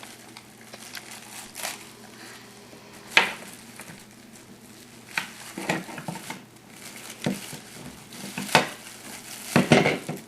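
Packaging being handled and unwrapped, with intermittent crinkling and rustling that comes in short bursts over a faint steady hum.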